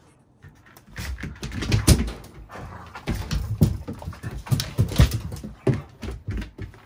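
Two Akita dogs play-fighting, with dog vocalisations and paws scuffling and knocking on the floor in irregular bursts.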